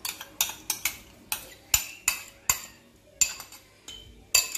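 A metal spoon clinking and tapping against the rim of a glass bowl, about a dozen sharp clinks at an irregular pace, as thick yogurt is scraped and knocked out into a mixing bowl.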